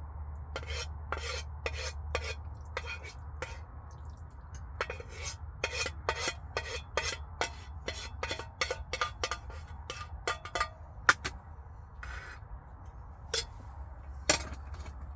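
A fork repeatedly scraping and clinking against a pan while pasta is twirled and eaten out of it, in quick irregular clicks with a few sharper knocks.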